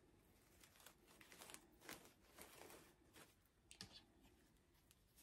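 Near silence, with faint, scattered rustling and crinkling as artificial silk tulips are adjusted by hand in a grapevine wreath.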